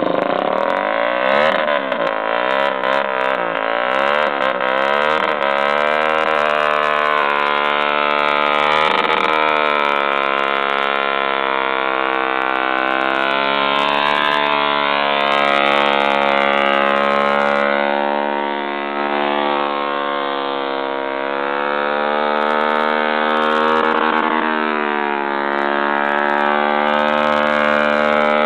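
Honda XR 250 Tornado's single-cylinder four-stroke engine ridden hard. It revs up and down quickly for the first few seconds, then is held at high revs with slow rises and falls in pitch.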